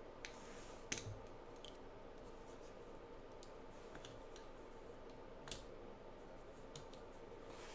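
A few scattered light clicks and taps from test gear being handled on a workbench, the loudest about a second in and another about five and a half seconds in, over a faint steady hum.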